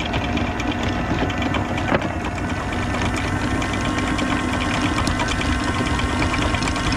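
A sailboat's motor running steadily: an even hum with a fast, regular knocking.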